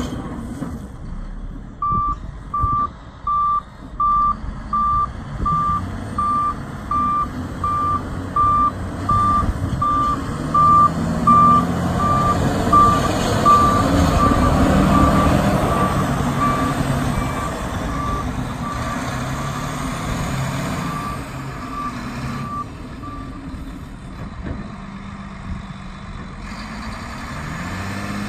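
Volvo A35F articulated dump truck backing up: its reversing alarm beeps evenly, about three beeps every two seconds, over the diesel engine running. The engine grows louder as the truck comes close about halfway through, and the beeping stops about three-quarters of the way in while the engine carries on.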